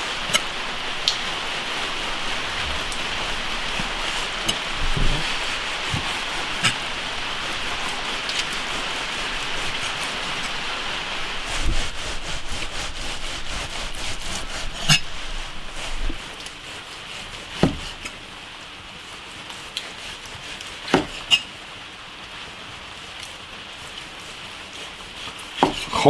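Chinese cleaver slicing through boiled pork belly, with occasional sharp knocks of the blade on a wooden chopping block, every few seconds. A steady hiss underneath drops away about two-thirds of the way through.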